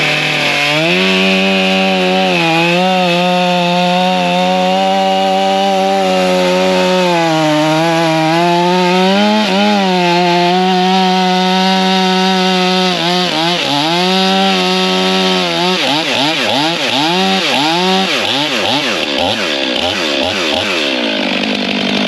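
Two-stroke chainsaw running at high revs and cutting wood, its pitch sagging now and then under load. From about 16 s it revs up and down repeatedly before settling.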